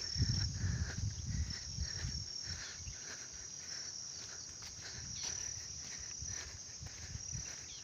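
Steady high-pitched chirring of insects in the grass, held almost unbroken. Low rumbling and rustling in the first two seconds, with scattered light rustles after.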